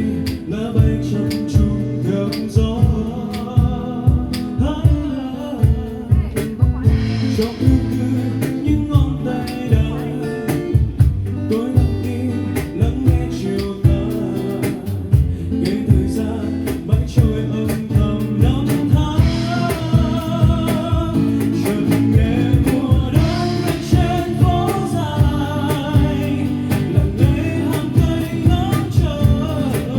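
A singer performing a Vietnamese song live, accompanied by a guitar strummed in a steady, regular rhythm.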